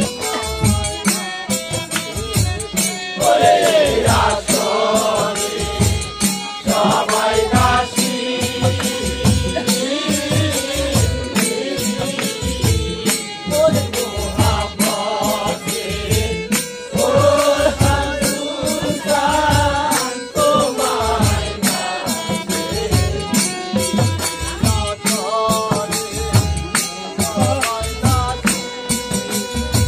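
Live Bengali bicched gaan (folk song of separation): a voice sings long phrases over a steady drum beat and rattling percussion.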